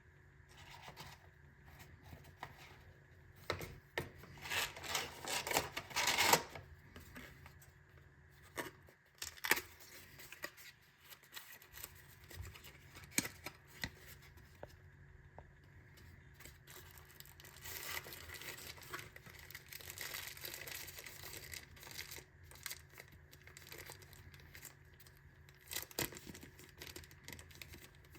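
Packaging being handled and opened by hand: crinkling and tearing of wrapping, with scattered clicks and knocks. The loudest tearing comes about four to six seconds in.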